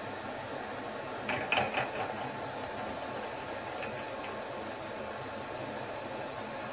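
Milling machine running steadily with a tapping drill for 1/8 BSP being started into a duplex stainless boiler wrapper. There is a short rattling clatter about one and a half seconds in.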